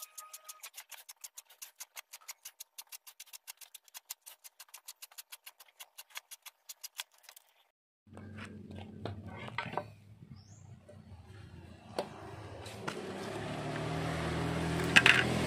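A file rasping across the teeth of a hand saw in quick, even strokes, about six a second. About halfway through it gives way to the same hand saw cutting through a bamboo pole, the sawing growing louder toward the end.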